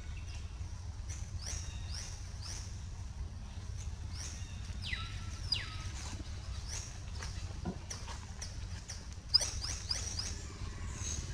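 Short, high-pitched chirps, each falling in pitch, repeat irregularly about twice a second over a low steady rumble. A longer falling squeal comes about five seconds in, and a quick cluster of chirps near the end.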